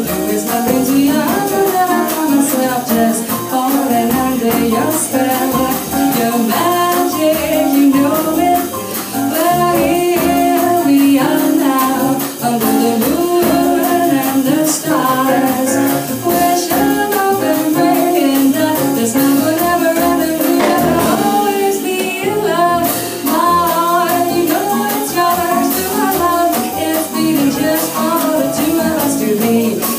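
Live jazz sextet playing, with a woman singing over the band.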